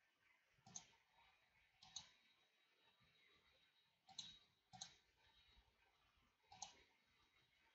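Faint, scattered clicks of a computer mouse button, five in all, spaced a second or two apart, as colours are picked in software.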